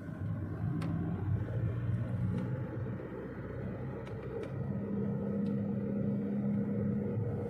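Steady low hum of a vehicle engine running, with a few faint clicks.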